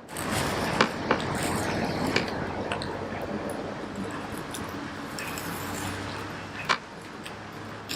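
Knife sawing and scraping through a frozen cherry blossom trout, with a few sharp clicks of the blade against the surface beneath.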